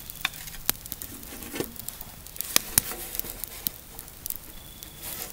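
Wood fire crackling, with scattered sharp pops and clicks, some likely from a small metal char cloth tin being handled.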